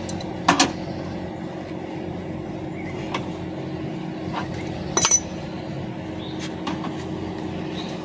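Voltas R32 inverter split-AC outdoor unit running with a steady hum, pulling its own vacuum ('self backup') on the line. A hex key on the service valve gives sharp metal clinks about half a second in and again about five seconds in, with a few lighter ticks between.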